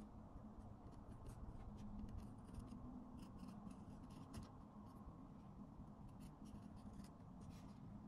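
Small scissors snipping thread ends inside a leather case, heard as faint scattered clicks of the blades over a low steady hum.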